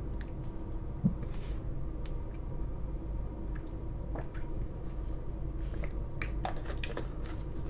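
Small wet mouth sounds of someone sipping and tasting eggnog: scattered smacks, clicks and swallows, with a soft thump about a second in.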